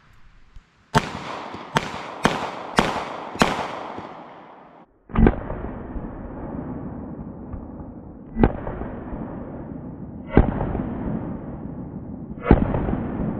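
Taurus Model 85 .38 Special revolver firing light 158-grain lead round-nose handloads. Five quick shots come about half a second apart, then a slower string of four shots about two seconds apart, each trailing off in an echo.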